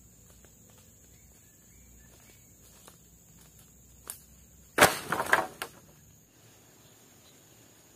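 Steady high drone of forest insects, broken about five seconds in by a short burst of sharp knocks and cracks, the loudest thing here.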